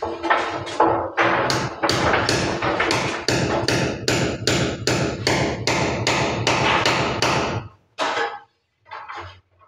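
Hammer tapping small nails to fix a carved wooden ornament piece onto a moulded wall panel: a quick, even run of about three strikes a second, which stops near the end with two last taps.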